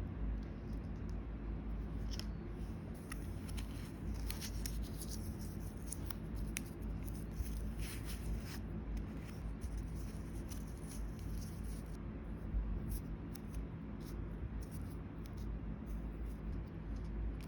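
Close-up handcrafting sounds from making miniature pieces: an uneven run of small snips, scrapes and light taps of hand tools on small materials, over a steady low hum.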